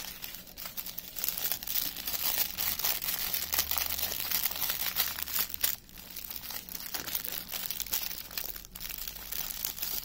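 Small plastic bags of diamond-painting drills crinkling as they are handled and rolled up, a near-continuous crackle with brief pauses about six and nine seconds in.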